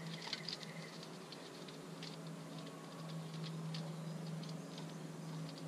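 Light scattered clicks and taps of small plastic and metal parts being handled and twisted off the nozzle end of an airless paint spray gun, over a steady low hum.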